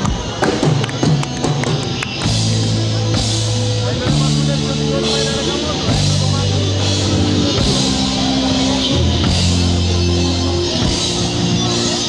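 Live rock band with electric guitars and drum kit. After about two seconds of loose drum hits, the band comes in together with held heavy chords that change about once a second, with a cymbal crash on each change.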